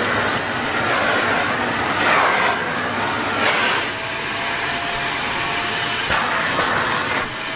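Vacuum cleaner running with a steady rushing noise that swells a few times, and a thin steady whine that comes in about four seconds in.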